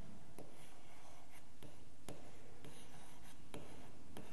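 Stylus writing on an interactive whiteboard screen: a string of irregular small taps and scratchy strokes as a word is written, over a low steady room hum.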